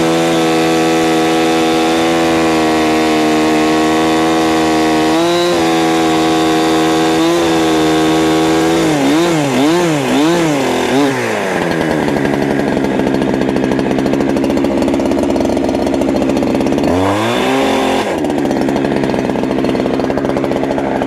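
71cc Holzfforma G372 two-stroke gas chainsaw running at high revs while cutting firewood. Its pitch holds steady for the first several seconds, wavers up and down about nine seconds in, and then settles lower and rougher, with one quick rev up and down about seventeen seconds in.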